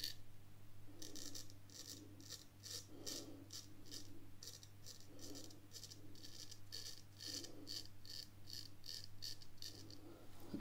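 Drew Dick 8/8 smiling straight razor cutting lathered whiskers in short strokes: a faint, rapid series of crisp scrapes, about three a second, with brief pauses between runs.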